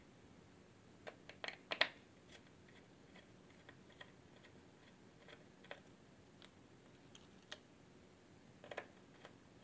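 Faint scattered clicks and light metal taps from hands working on a 2.5-inch laptop hard drive on a wooden desk, a cluster of them a couple of seconds in and a few more single ticks later.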